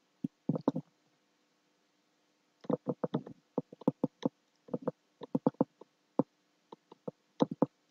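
Soft clicks and ticks from a computer mouse and keyboard, coming in irregular clusters during the second half, over a faint steady electrical hum.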